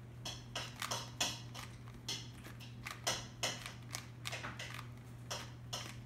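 Plastic Rubik's cube being solved by hand: its layers are twisted rapidly, clicking and clacking in quick irregular runs.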